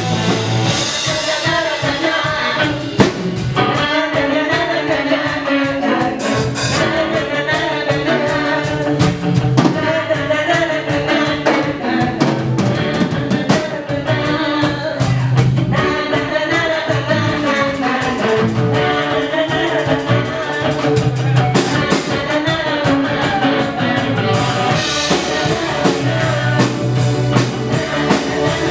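Live rock band playing a song: two women singing into microphones over drum kit, bass guitar and electric guitar.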